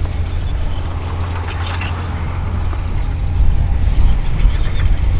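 Vehicle engine running with a steady low rumble, getting louder a little past halfway.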